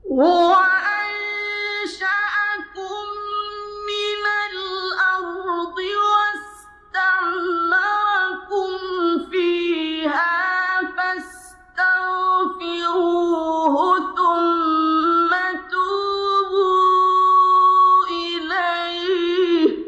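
A man's high voice chanting Quran recitation in Arabic, drawn out in long, ornamented melodic phrases with the pitch bending and wavering. There are two short breaks for breath, about seven and twelve seconds in.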